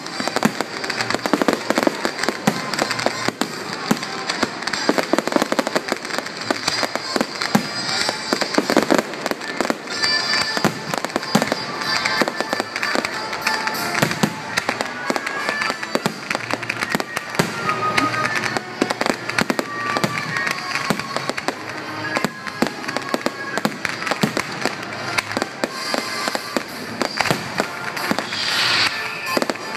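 Fireworks display: a dense, unbroken run of bangs and crackling from aerial shells and ground fountains going off together.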